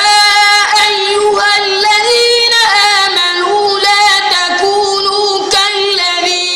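A boy's high voice chanting Quranic recitation in long, drawn-out melodic notes with small ornamental turns of pitch, pausing briefly about five and a half seconds in before going on.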